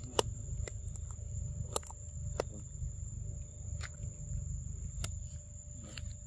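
Outdoor ambience: a steady low rumble, a thin steady high-pitched whine, and about seven sharp irregular clicks.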